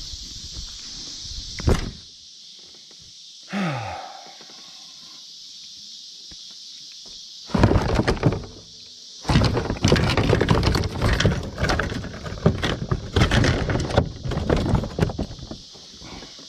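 A landed fish flopping around on the bottom of a boat: loud, irregular thumps and rattles from about halfway in, with a short pause, stopping near the end.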